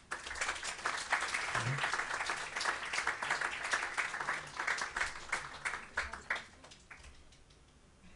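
Audience applauding: a dense patter of many hands clapping that thins out and stops about seven seconds in.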